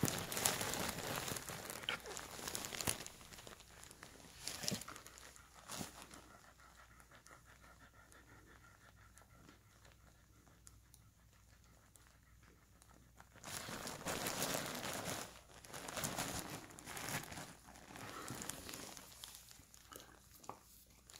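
Airedale Terrier bitch panting in labour while whelping, with rustling of the bedding sheets under her. The panting and rustling come in two stretches, near the start and again past the middle, with a quieter spell between.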